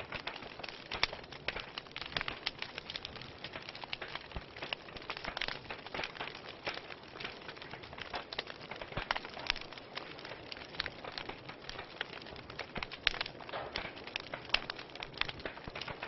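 Wood fire crackling: dense, irregular sharp pops and snaps over a soft steady hiss of burning logs.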